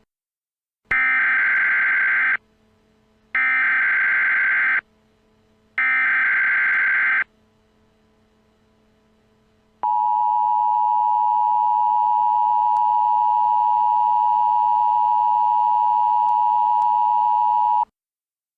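Emergency Alert System SAME header: three short bursts of screechy digital data tones, followed by the EAS attention signal, a steady two-tone alarm that holds for about eight seconds and then cuts off.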